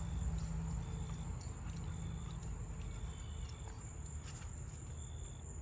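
Insects trilling steadily in a high continuous band, with a shorter note repeating roughly once a second, over a low rumble.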